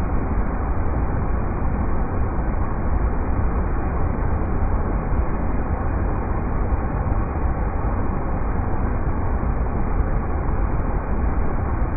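River rapids rushing, a steady, unbroken wash of water noise with a strong low rumble.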